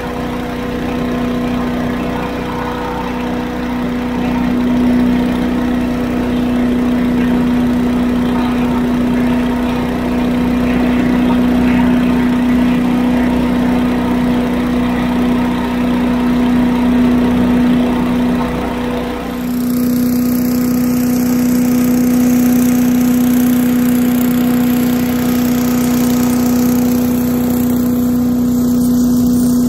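Tractor-mounted 8 hp Little Wonder leaf blower running steadily, a strong even hum, together with the compact tractor's diesel engine as the tractor drives. About twenty seconds in the sound turns brighter and hissier while the hum carries on unchanged.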